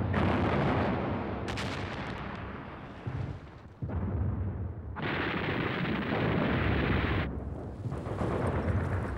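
Battle sound effects of gunfire and explosions over a heavy rumble. The sound breaks off abruptly about four seconds in and resumes, then changes again a little after seven seconds.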